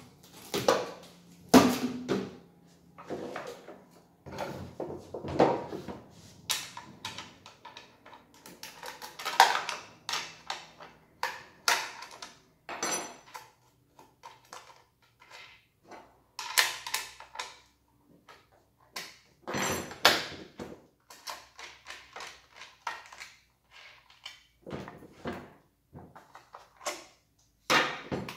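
Irregular clicks, knocks and clunks of a Riwall RECS 2040 electric chainsaw and a spanner being handled on a wooden workbench while the saw's sprocket cover is unbolted and lifted off.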